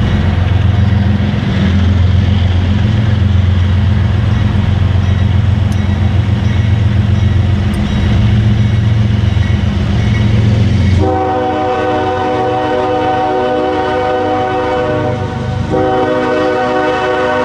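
Approaching diesel freight locomotive with a steady low rumble. About two-thirds through, its multi-chime air horn sounds a long chord, breaks off briefly near the end, and sounds again. This is the horn signal for the grade crossing.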